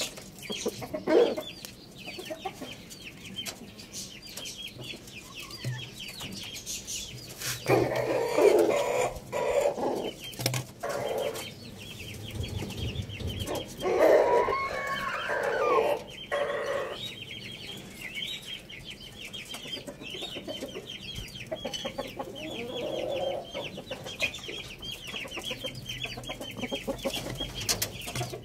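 Rooster and hens clucking as they feed, with two louder spells of calling about a third and halfway through. A constant run of short high chirps goes on underneath.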